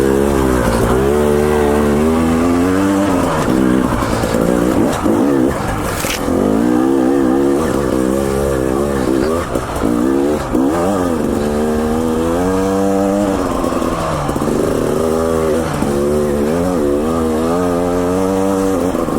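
KTM 300 XC-W TPI two-stroke dirt bike engine running hard, its pitch rising and falling continually as the throttle is opened and closed, with a couple of brief drops off the throttle about halfway through.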